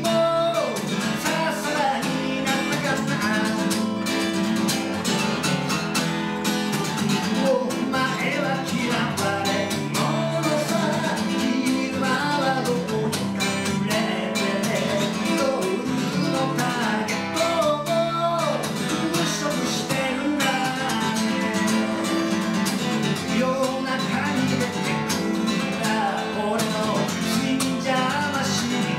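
A man singing over a strummed acoustic guitar, a solo live song.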